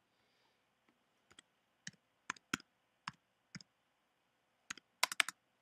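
Computer keyboard keys clicking as an IP address is typed: a dozen or so separate keystrokes at an uneven pace, several in quick succession near the end.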